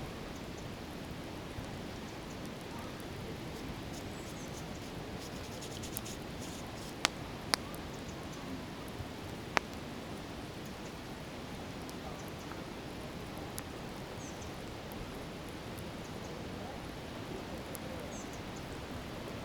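Steady rushing noise of the fast-flowing Katun river. Three sharp cracks stand out above it: two close together about seven seconds in and a third about two seconds later.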